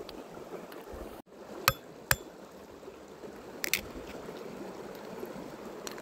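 A small mountain stream trickling steadily, with two sharp cracks about two seconds in and a lighter one a couple of seconds later. The sound drops out for an instant just over a second in.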